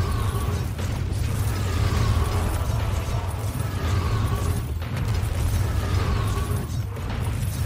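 Drawn-out creaks from a sailboat's gear straining in high wind, coming again about every two seconds, over a steady low rumble.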